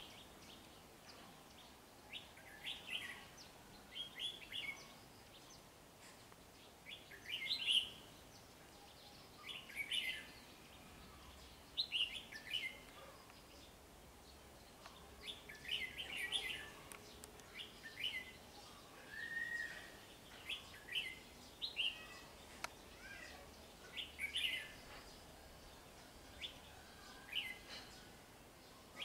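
Red-whiskered bulbul singing: short, bright chirping phrases repeated every second or two over a faint background hiss.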